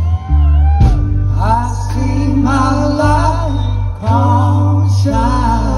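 Live band playing a slow rock ballad, with a male lead vocal and a harmony voice singing over acoustic guitar and a strong, steady bass.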